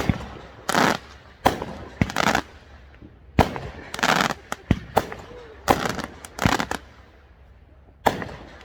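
Fireworks going off in a string of sharp bangs, several of them followed by crackling bursts, with a short lull about seven seconds in.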